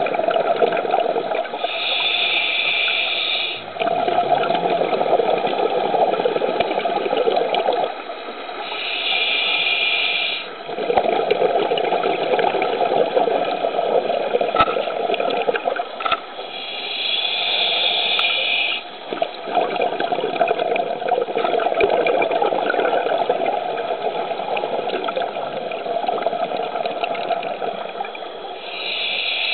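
Scuba diver breathing underwater through a regulator: a short hiss on each inhale, about every seven or eight seconds, followed each time by a long stream of exhaled bubbles.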